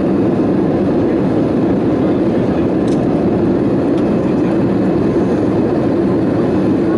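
Steady engine and airflow noise heard inside the passenger cabin of an Airbus A320 in flight, a low, even rumble.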